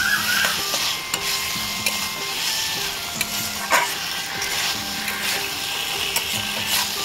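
Potatoes and tomato masala sizzling in a metal kadai while a steel spatula stirs and scrapes through them, with scattered clicks of the spatula on the pan and one sharper knock about four seconds in.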